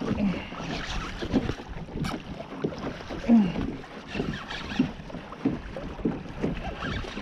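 Choppy water sloshing and slapping against a plastic fishing kayak's hull as it moves, with wind buffeting the microphone. Short uneven knocks and splashes throughout, the loudest about three seconds in.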